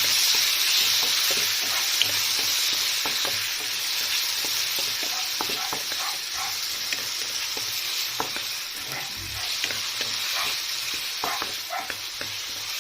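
Chopped onions and tomatoes sizzling in hot oil in a pan, stirred with a spoon that clicks against the pan now and then. The sizzle slowly dies down.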